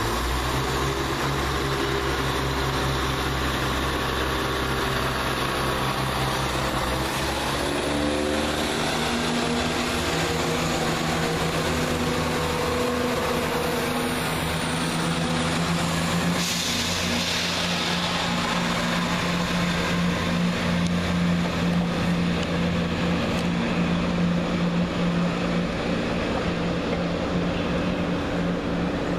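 Class 170 Turbostar diesel multiple unit pulling out of the station. Its underfloor diesel engines run steadily, then rise in pitch about eight seconds in as they build power, and keep running under load.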